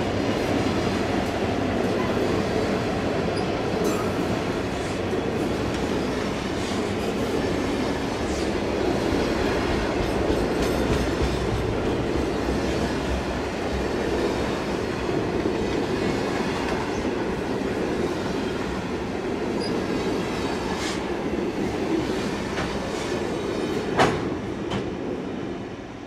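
Loaded grain hopper wagons rolling past on the rails: a steady rumble of steel wheels on track with occasional clicks, and one sharp clank near the end.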